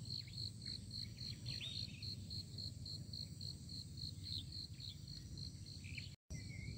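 An insect, such as a cricket, chirping in a steady high pulse about four times a second, with a few faint falling bird-like chirps and a low rumble underneath. The sound cuts out for a moment near the end.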